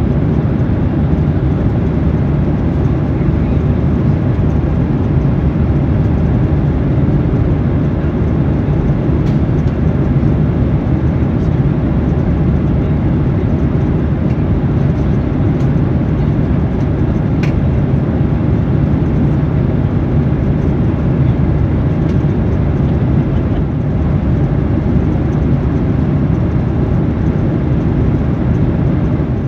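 Steady low rumble of cabin noise inside a Boeing 737-800 airliner, from its CFM56-7B engines and the air around the fuselage.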